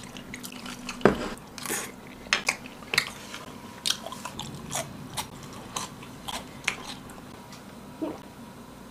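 Close-miked eating sounds: chewing and biting on chicken-breast porridge and grilled chicken, with many short sharp clicks and taps. A heavy knock about a second in as a plate is set down on the table.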